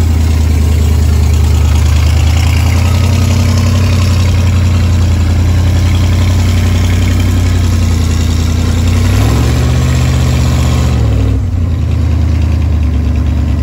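1967 Corvette C2's V8 engine idling steadily through its dual exhausts. Its pitch rises slightly about nine seconds in and drops back about two seconds later.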